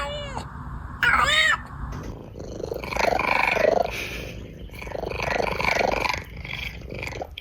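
Domestic cat vocalizing: two short meows, each rising and falling in pitch, in the first second and a half, then a rough, drawn-out sound that comes and goes in long stretches for the rest.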